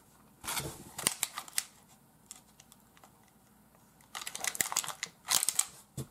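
Hard green plastic packaging of a Sportsclix baseball figure being handled and prised open: a quick run of sharp plastic clicks and rustles about half a second in, and another around four seconds in.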